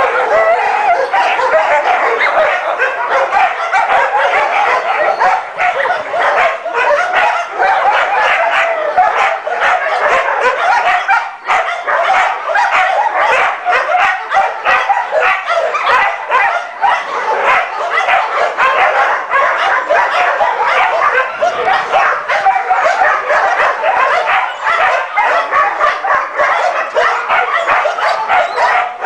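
Several kennelled dogs barking and yelping at once, a continuous overlapping din with no pauses.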